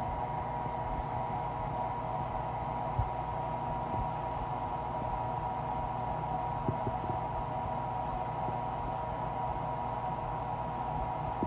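Steady hum and hiss with a fixed high tone, broken by two faint thumps, about three seconds and about seven seconds in.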